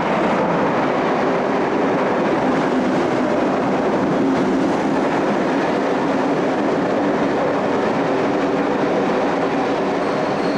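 Southern Region 4VEP electric multiple unit running past, a steady rumble of wheels on rail with a low steady hum.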